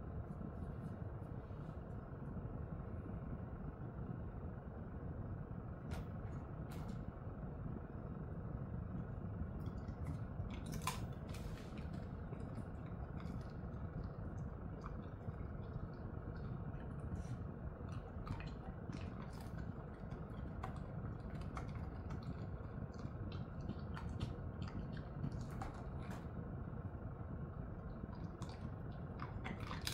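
Jindo-mix dog chewing and crunching small treats, heard as scattered short clicks that cluster about ten seconds in and again through the second half, over a steady low background hum.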